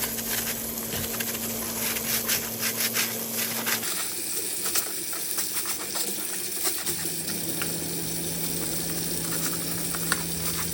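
A scrubber rubbing over a plastic dishwasher filter in a sink, in irregular scratchy strokes over a steady background hum. The background changes abruptly about four seconds in.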